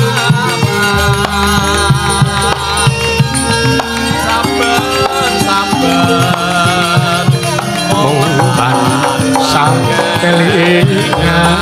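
Javanese gamelan ensemble playing: struck bronze metallophones and kendang hand drums, with a wavering melody above. A deep low tone holds from about a second in until near the end.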